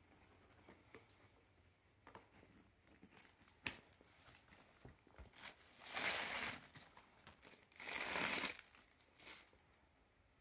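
Cardboard parcel being opened by hand: taped box flaps creaking as they are bent back and packing wrap crinkling, with scattered clicks and two louder rustles about six and eight seconds in.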